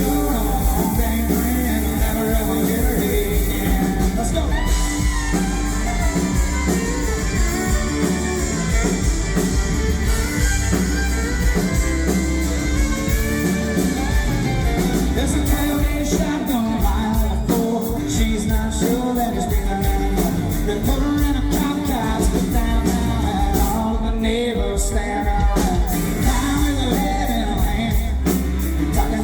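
Live country-rock band playing a song with a lead singer over electric guitars and a steady drum beat.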